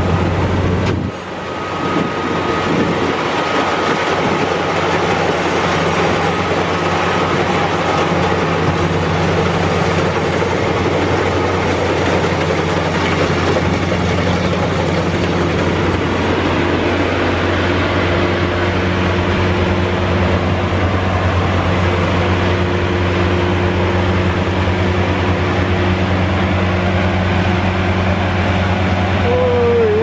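Maxxi Bimo X 2.0 rice combine harvester running steadily while harvesting: a constant low engine drone over the noise of the threshing machinery. A short wavering tone cuts in near the end.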